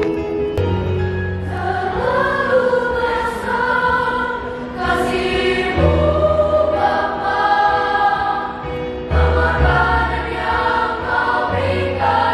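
Children's choir singing a hymn-style song together, boys' and girls' voices.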